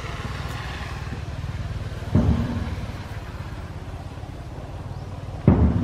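An engine running steadily with a low rumble. Two dull thumps come through, about two seconds in and near the end.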